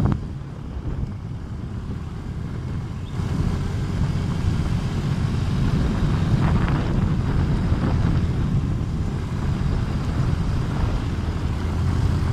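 Wind rumbling on the microphone while riding along a road, with a steady vehicle drone underneath; it grows louder about three seconds in.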